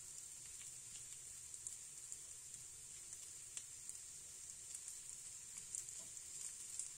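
Spiced prawns frying in oil in a nonstick pan while being stirred with a wooden spatula: a faint steady sizzle with scattered small pops and crackles.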